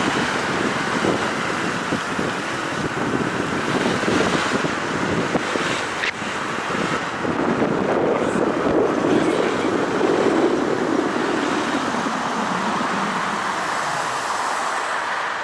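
Wind rushing over a head-mounted camera's microphone while riding in traffic, with a vehicle engine running underneath that swells for a few seconds past the middle.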